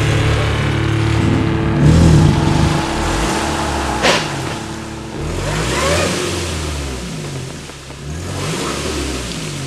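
Suzuki Grand Vitara's engine revving up and falling back again and again while the SUV sits stuck in a muddy puddle, trying to pull free. There is a single sharp knock about four seconds in.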